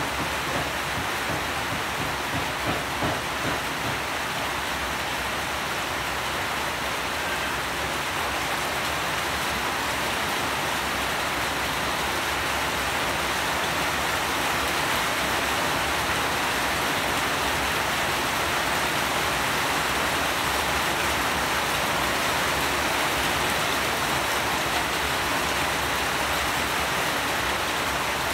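Steady rain falling, an even hiss of many drops with no single drop standing out, growing slightly louder about halfway through.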